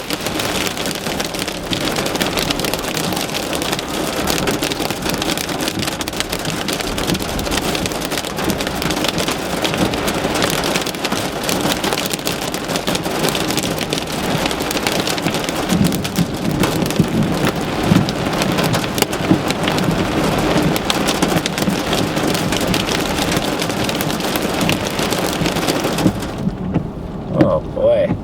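Heavy monsoon rain pelting a car, a dense, steady patter of countless drops. Near the end the hiss drops away suddenly.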